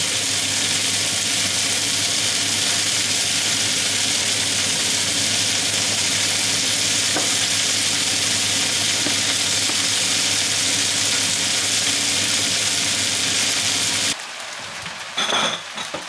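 Frying pan of diced onion and potato sizzling steadily, with a low hum underneath. About 14 seconds in it drops off abruptly to a much quieter sizzle with a few light clicks.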